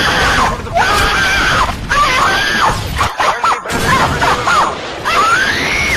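High-pitched screaming meme sound effects: a run of loud screams that rise and fall in pitch, broken by a short gap about three seconds in.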